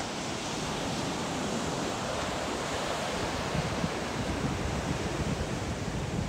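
Ocean surf washing onto a beach as a steady hiss, with wind buffeting the microphone in low rumbling gusts.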